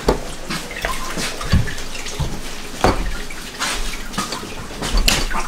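Water running from a kitchen tap into a sink, with a few knocks and clatters of things being handled in it.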